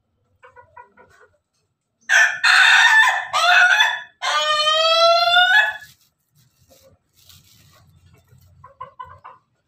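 Ayam ketawa (Indonesian laughing chicken) rooster crowing: a few choppy, rough notes, then one long held note rising slightly, about four seconds in all. Soft clucking comes before and after the crow.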